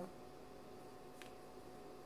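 Quiet room tone with a faint steady hum and one faint tick about a second in.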